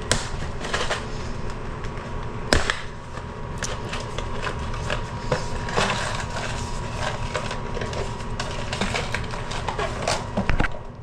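Irregular clicks, knocks and rattling of plastic toilet-tank parts being handled while a flapper is swapped out, with two sharper knocks, one at the start and one about two and a half seconds in.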